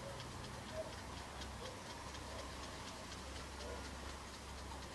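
Faint outdoor ambience: an even, high ticking about four to five times a second over a low steady hum, with a few soft short chirps.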